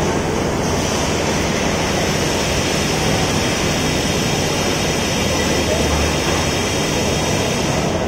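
Steady din of construction-site machinery: a constant rumble and hiss with no distinct strikes.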